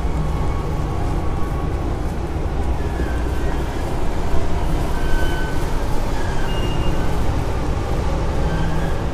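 Steady riding noise picked up by a camera on a moving bicycle: rolling tyre and air noise with a constant deep hum underneath.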